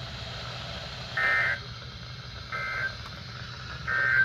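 Three short bursts of Emergency Alert System data tones from a NOAA Weather Radio broadcast, about 1.3 s apart: the end-of-message code that closes the warning. Each burst is a buzzy two-tone warble about a third of a second long, over a low steady hum.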